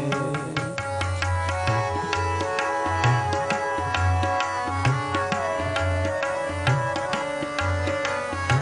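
Instrumental interlude of Sikh kirtan: harmoniums hold a steady melody over a running tabla beat, with deep bass strokes from the tabla's bayan about every second.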